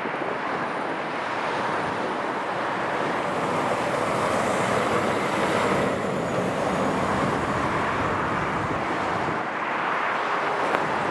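Motorway traffic: a steady rush of tyres and engines from trucks and cars passing, swelling a little near the middle.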